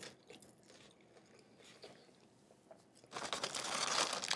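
Faint chewing, then about three seconds in a loud, crackly crunch of someone biting into breaded fried chicken, the KFC Chizza's chicken crust.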